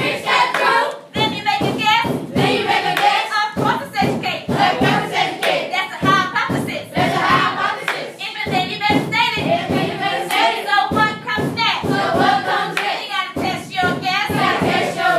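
A class of schoolchildren and their teacher rapping the lyrics together in unison, over a beat of hand claps.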